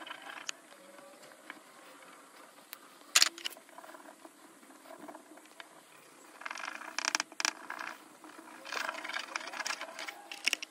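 A waxy pastel stick scribbling fast strokes across heavy paper, heard as quick scratchy rasps in two runs in the second half. Before that there is quieter scratching of a marker tip and one sharp click about three seconds in.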